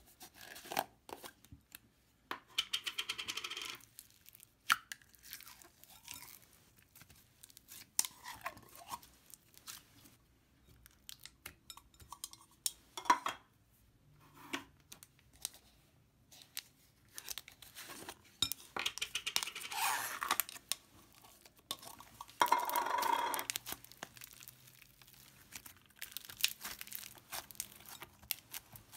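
Thick slime being pushed and peeled out of plastic tubs into a glass bowl, making sticky crackling and tearing sounds in irregular bursts with scattered clicks and pops. There are a few longer crackling stretches.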